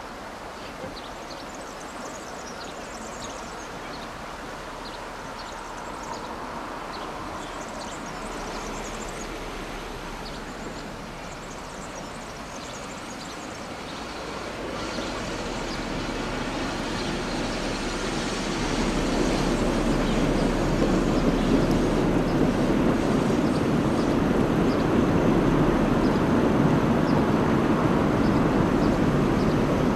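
SU45 diesel locomotive and its train approaching, a steady rumble of engine and wheels on rail that grows louder from about halfway through and stays loud to the end.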